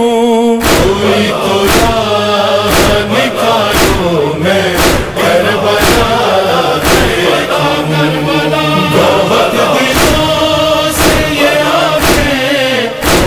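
Male voices chanting an Urdu noha, a Shia lament, in chorus over a steady beat of about one stroke a second.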